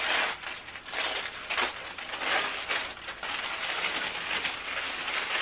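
White tissue paper rustling and crinkling in several uneven bursts as the wrapping is peeled open and folded back.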